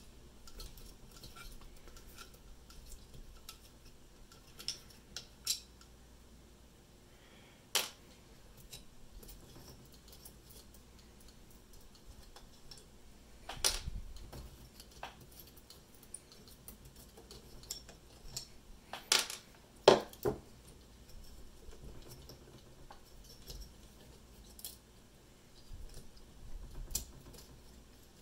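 Scattered clicks and clacks of hands handling a car alternator's plastic and metal rear parts at the rectifier and regulator, with a few sharper knocks about halfway and two-thirds of the way through.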